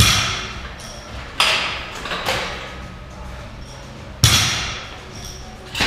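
Loaded barbell with bumper plates striking the gym floor over and over during repeated lifts: four loud thuds with a metallic ring, one at the start, one about a second and a half in, one about four seconds in and one near the end, with a lighter knock between the second and third.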